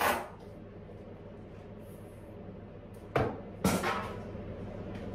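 Masking tape pulled off the roll in two short rips about half a second apart, a little past halfway, as it is laid along a surfboard rail. Under it runs the steady hum of a room heater warming the workshop to thin the epoxy.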